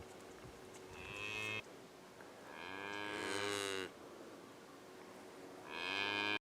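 Farm animal calling three times, each a drawn-out call that swells in loudness, the middle one the longest; the sound cuts off abruptly near the end.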